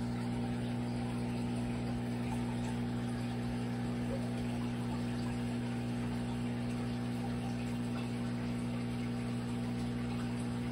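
Saltwater aquarium pump running with a steady low hum, over a faint wash of circulating water.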